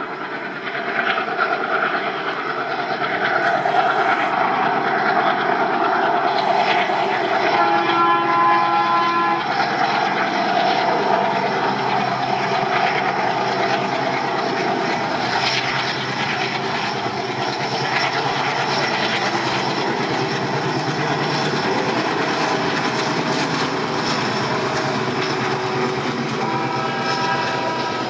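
WDM-series diesel locomotive hauling a passenger train past, engine and wheels on the rails running steadily. Its horn sounds twice, for about two seconds each time: about eight seconds in and again near the end.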